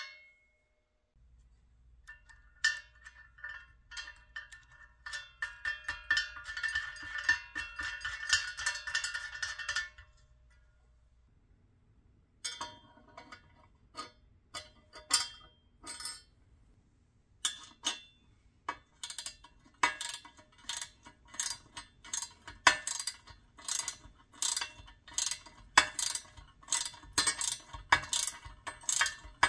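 Metal parts of a vintage Duncan parking meter clinking, scraping and ringing as they are handled and fitted. In the second half, a ratcheting wrench works a bolt inside the meter housing in regular clicking strokes, about two a second.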